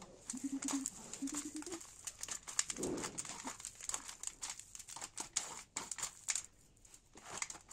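Hands tossing and squeezing crumbled dry instant noodles with chopped greens in a steel plate: dense, irregular crackling and rustling.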